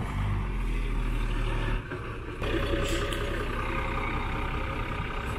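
Mercedes-Benz 813 truck's diesel engine running at low speed as the truck is manoeuvred. Its sound dips briefly about two seconds in, then runs on steadily with a fuller note.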